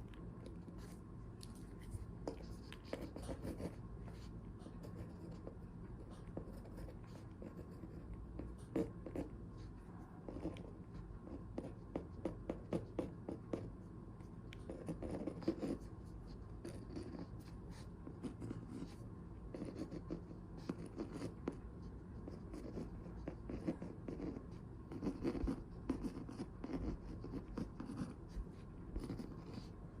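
Handwriting on paper: scratchy strokes and small clicks of the writing tool, coming in short clusters with brief pauses between them.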